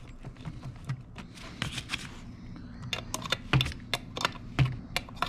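Quick, irregular metal clicks from a ratcheting wrench run down on the bar nut of a Homelite Super 2 chainsaw, along with the chain links rattling as the chain is seated on the bar. The clicks come thicker and more regular about three seconds in.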